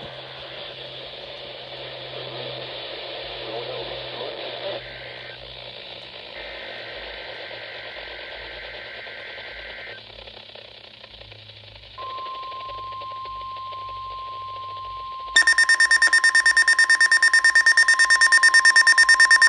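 Weather radio hissing with dead air. About twelve seconds in, the NOAA Weather Radio 1050 Hz warning alarm tone starts as one steady tone, and a few seconds later the receiver's own alarm sets off, a much louder, rapidly pulsing beep.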